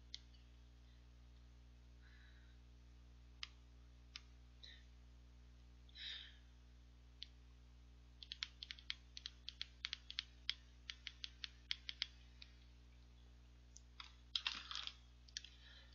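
Thumbs tapping on a mobile phone while typing a message: small sharp clicks, scattered at first, then a quick run of them in the middle, with a brief louder rustle of handling near the end.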